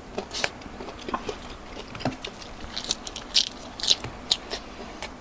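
Close-up crunchy chewing of crispy deep-fried fish pieces eaten bones and all, with a string of short, sharp crunches.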